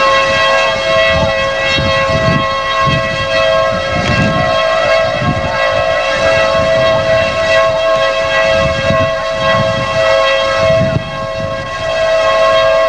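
Outdoor civil defense tornado warning siren holding a steady two-note tone, sounding the tornado warning. Gusts of wind rumble on the microphone underneath.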